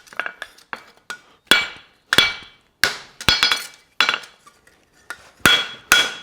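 Farrier's hammer striking a hot steel horseshoe on the anvil while shaping the toe bend: irregular blows with a clear metallic ring. Light taps come first, then heavier strikes, and after a short pause near the end two quicker blows.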